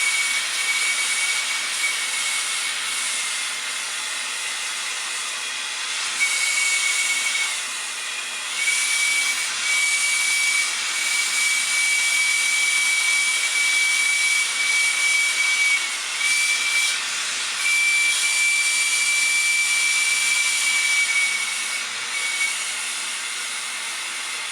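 Handheld gas torch flame hissing steadily, with a thin high whistle that cuts out and returns several times, as it heats a stuck shower faucet stem to free it.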